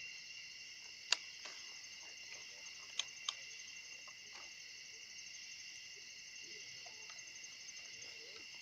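Steady high-pitched insect chorus, like crickets, trilling throughout. Three sharp clicks stand out: one about a second in and two close together around three seconds in.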